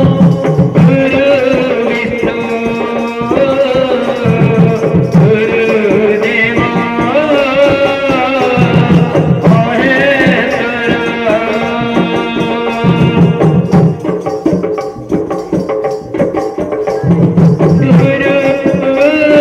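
Devotional naam sankirtan: a group of men singing a chant over drum accompaniment, with a steady held tone beneath the voices.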